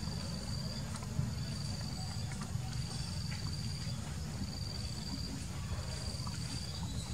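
High-pitched insect call, probably a cricket or cicada, repeating in even bursts of just under a second with short gaps, about six times, over a steady low rumble.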